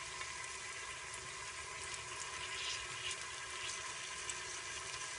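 Sliced onions sizzling in hot oil: a steady frying hiss with scattered small pops and crackles, at the start of browning.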